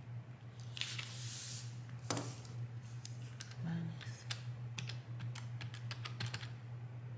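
Keys of a plastic desk calculator tapped with a pen tip, a quick run of small clicks about four seconds in, entering a subtraction. Before that, a brief scratchy rustle and one sharper click, over a steady low hum.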